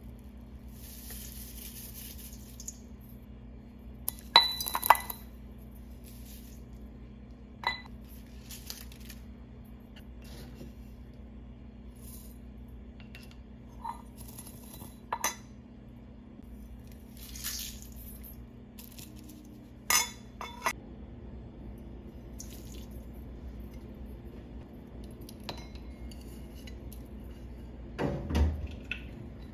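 Metal kitchen utensils clinking now and then: a spoon against a stainless steel mixing bowl and a brass pestle in its mortar, some clinks ringing briefly, with soft rustles of dry spices being tipped in and one dull knock near the end. A steady low hum runs underneath.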